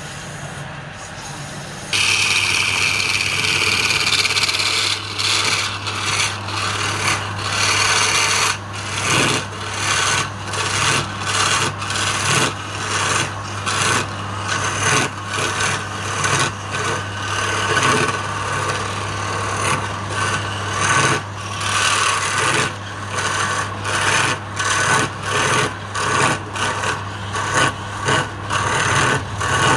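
Wood lathe running with a steady hum while a hand-held flat scraper cuts the face of a spinning palm-wood piece, giving a rasping scrape. The scraping gets loud about two seconds in, then comes and goes in quick, repeated passes, roughly one to two a second.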